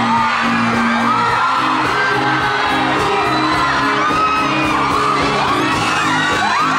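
Live concert music with a steady beat and a bass line, heard from within the audience, with many people screaming and whooping over it.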